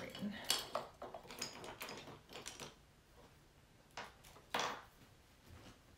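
Irregular light clicks and knocks of small hard objects being handled, several in the first two and a half seconds, then two sharper ones about four and four and a half seconds in.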